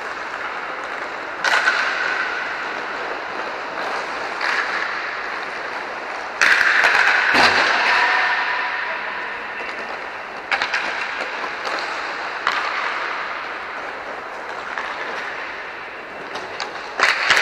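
Inline hockey play: sticks and puck knocking sharply several times, a few seconds apart, over a steady background of rink noise. The knocks echo under the dome, and the loudest come about six to seven seconds in.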